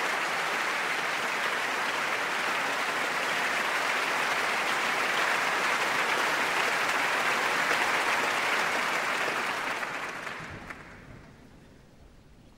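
A large concert-hall audience applauding steadily, then dying away over the last couple of seconds.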